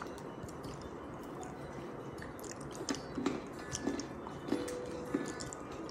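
Someone chewing a crunchy fried snack: faint, irregular crunches and clicks, clustered in the second half.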